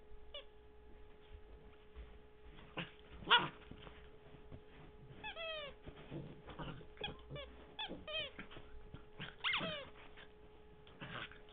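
Chocolate Labrador retriever puppy giving short yips and whimpers while playing, a scattering of brief cries, several falling in pitch, the loudest about three seconds in.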